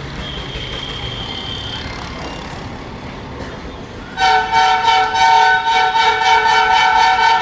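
Passenger train coaches rolling slowly past, then about four seconds in a locomotive air horn sounds a loud chord of several tones held for about three seconds.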